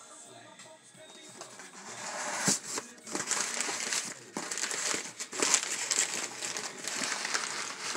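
Crumpled brown kraft packing paper rustling and crinkling as it is pulled out of a cardboard shipping box. It starts about two seconds in, with a dull thump soon after.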